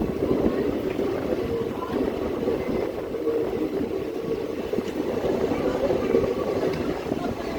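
Passenger train running along the track, a steady rumble of the moving carriage.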